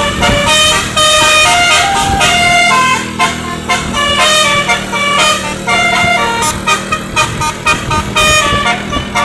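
Basuri telolet bus horn playing a melody: a quick run of stepped, horn-like notes, often several at once, with a steady low hum underneath.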